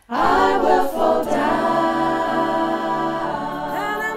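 Choral music: a choir singing long held chords, starting abruptly at the beginning.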